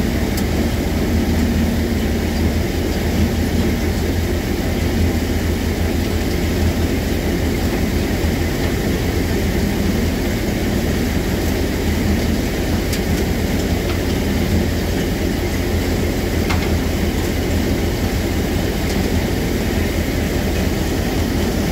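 Multicrop thresher running steadily: a continuous loud mechanical drone with a strong low hum underneath.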